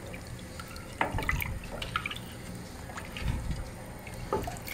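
Wooden spoon stirring water in a stainless steel pot: liquid sloshing and dripping, with a few short sharp knocks about a second in and near the end.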